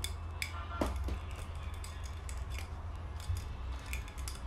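Light, irregular metallic clicks and scraping from a steel rod being worked into a rifled airgun barrel to push a pellet through and test the rifling, over a steady low rumble.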